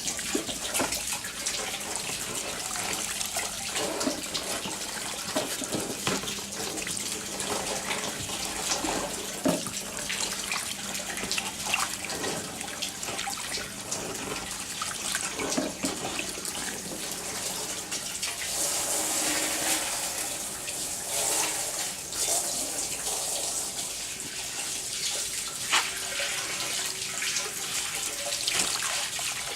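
Water running and splashing steadily, with scattered light knocks and, for the first part, a faint low hum.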